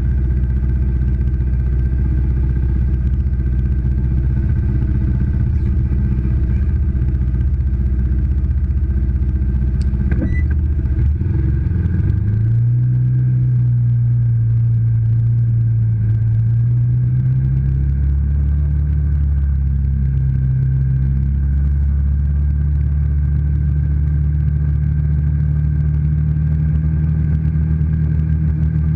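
ATV engine idling steadily, then revving up about twelve seconds in and running under way, its pitch rising and falling with the throttle.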